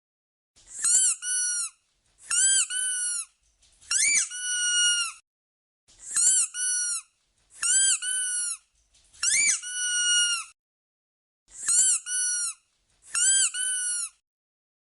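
Squeaky dog toy squeezed eight times, each squeeze giving a double squeak: a short sharp squeak rising and falling, then a longer held squeak as it is squeezed and released.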